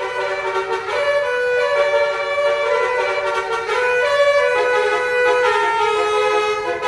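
Bus basuri musical air horn playing a tune: a melodica-like tone stepping through held notes, about one a second, without a break.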